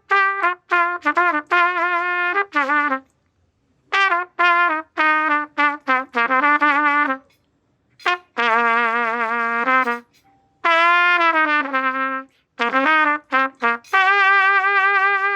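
Unaccompanied trumpet playing jazz phrases: runs of short notes and a few held notes with vibrato, broken by brief pauses.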